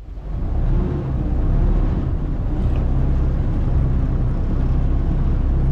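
A fishing boat's engine running steadily, a low rumble mixed with the rush of water along the hull. It fades in over the first half second.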